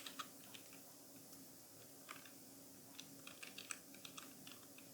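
Faint typing on a computer keyboard: a few keystrokes at the start, a short burst about two seconds in, then a quicker run of keystrokes from about three seconds in until near the end.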